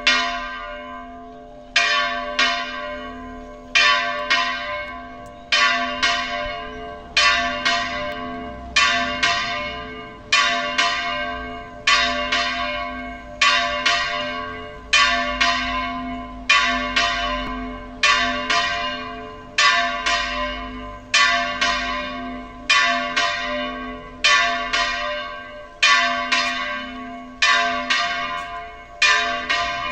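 Church bell swinging 'al vuelo' in the belfry, its clapper striking about every second and a half, each stroke ringing on into the next.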